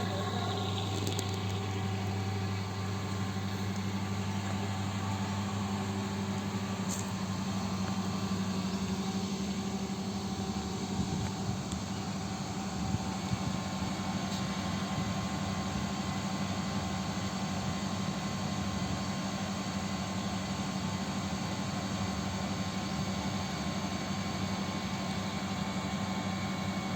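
Swimming pool heat pump running: a steady mechanical hum with a low drone that fades about nine seconds in.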